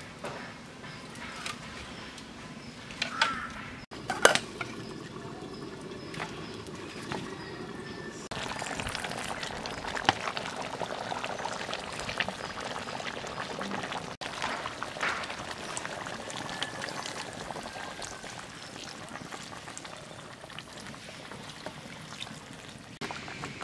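Cooking at a wood-fire stove: a metal spatula stirring papaya curry in a metal karahi, then water poured from a mug into the curry. A few sharp clinks come about four seconds in.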